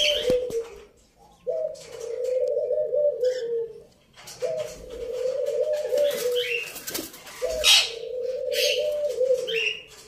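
Indian ringneck parakeets with short high calls and a loud flurry of wing-flapping a little past halfway, over a low drawn-out call that repeats about every three seconds.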